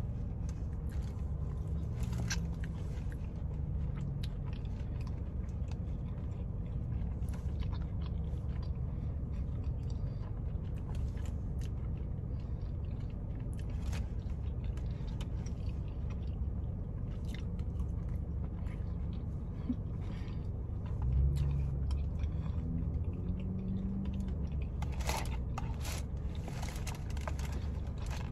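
A person chewing and biting into sauced boneless chicken wings close to the microphone, with small wet clicks and crunches that come thickest near the end, over a steady low hum.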